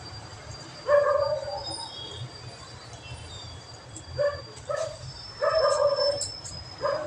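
A dog barking: about five short, high barks, one about a second in and the rest bunched in the second half.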